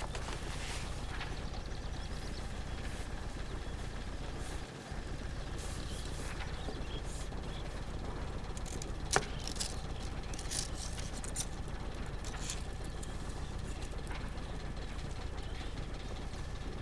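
A steady low hum runs under a few short, sharp clicks and light rustles from stiff paper herbarium sheets and dried specimens being handled. The sharpest click comes about halfway through.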